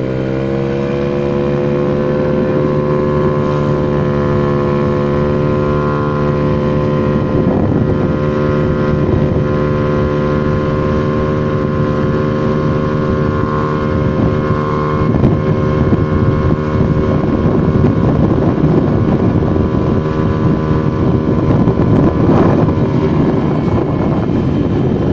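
Single-cylinder four-stroke engine of a Honda Vario 110 carburettor scooter, bored up to a 55 mm piston (about 130 cc), at full throttle in a top-speed run. Its note climbs quickly in the first second, then holds nearly steady at high revs while it pulls on toward 120 km/h without reaching its limit. Wind noise on the microphone grows louder in the second half.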